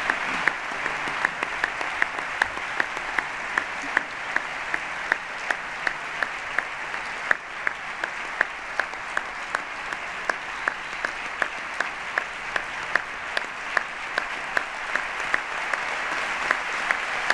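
Audience applauding steadily, with louder sharp claps standing out at an even beat of about three a second.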